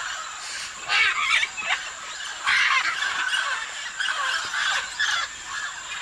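Scarlet macaws giving harsh squawking calls, loud ones about a second in and around two and a half seconds in, then several shorter ones between four and five seconds, over a steady background hiss.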